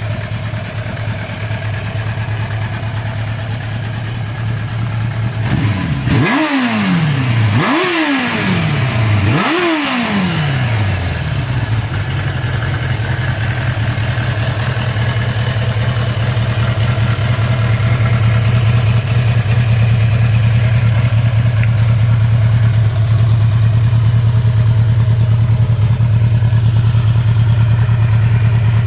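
1985 Suzuki GSX-R 750's inline-four engine idling, blipped three times in quick succession a few seconds in, each rev rising sharply and dropping back. It then settles into a steady idle.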